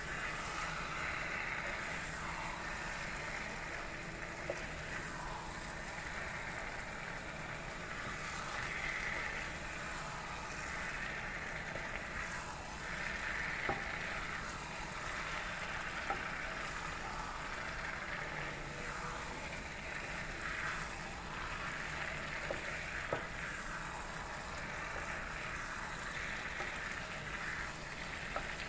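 Spiced cauliflower and potato curry sizzling steadily in a hot pan, with a few light sharp taps.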